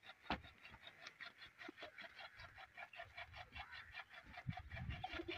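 Faint, rapid chirping of birds in a poultry and pigeon yard, a short call repeated several times a second. A few soft footsteps on dirt come near the end.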